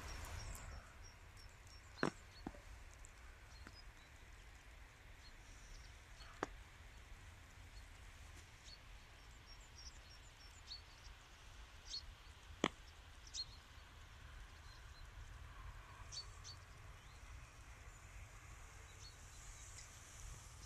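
Quiet outdoor ambience of a snowy park: faint, high-pitched bird chirps scattered throughout, with a handful of sharp ticks.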